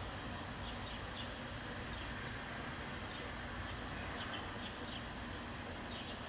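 Outdoor ambience: insects chirping in a fast, even pulse, with short high bird chirps every second or so, over a low steady rumble.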